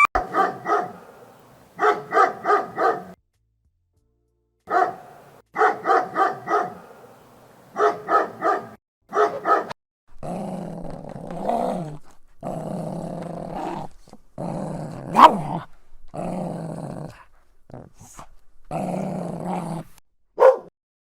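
Dog barking in quick bursts of three or four barks at a time, then growling in long, sustained stretches from about ten seconds in, with a sharp yelp or bark breaking through the growl once.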